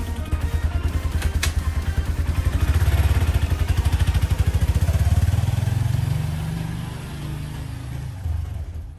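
Honda CB223S's single-cylinder four-stroke engine running as the motorcycle rides past and away, loudest midway, rising in pitch about five seconds in as it pulls off, then fading. A sharp click about a second and a half in.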